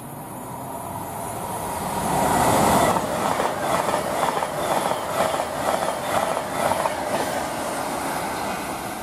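Avanti West Coast Class 390 Pendolino electric express passing through the station at speed. A rising rush builds as it approaches, then a rhythmic clatter of wheels over the rail joints comes about twice a second as the carriages go by, before it fades near the end.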